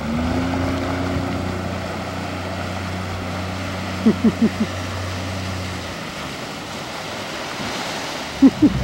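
Small aluminium tugboat's 50 HP Honda outboard running under power through a tight turn: a steady low drone over the wash of water and wind, which drops away about six seconds in. A few short bursts of laughter come about halfway through and again near the end.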